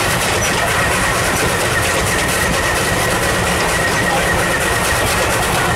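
Steam-hauled heritage train rolling along behind a New Zealand Ww class tank locomotive, heard from an open carriage balcony: a loud, steady rush of wheel and rail noise mixed with pouring rain, with a thin, steady high whine running through it.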